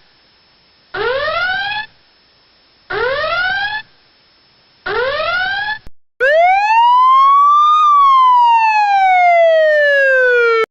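Electronic whoop alarm: three rising tones, each about a second long and two seconds apart. Then a siren tone rises for about a second and a half and falls slowly over the next three seconds.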